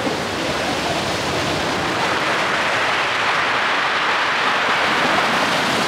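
Ocean surf breaking and washing up a pebble shore: a steady rush that builds a little through the middle.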